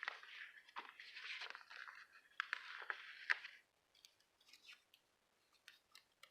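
Sticker sheets and paper being handled: a crinkling rustle with a few sharp ticks for about three and a half seconds, then a few scattered light clicks.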